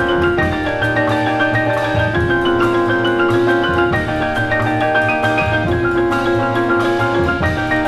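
Soul jazz piano trio recording: bright piano chords and melody over bass and drums, with held chords changing every second or two.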